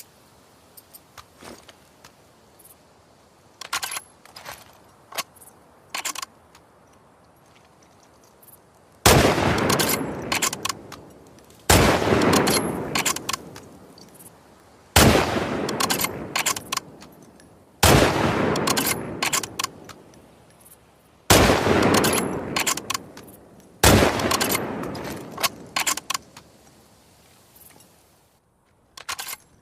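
Remington Model 700 BDL bolt-action rifle firing six single shots, each about two and a half to three and a half seconds apart and trailing off in a long echo. A few light clicks come before the first shot.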